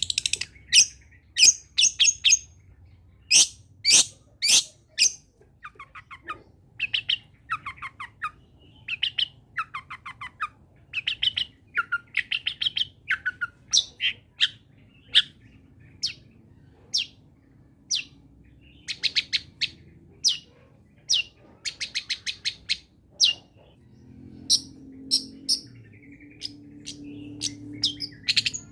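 Long-tailed shrike (cendet) singing in full voice: a varied string of sharp chirps and fast rattling note runs, with short pauses between phrases.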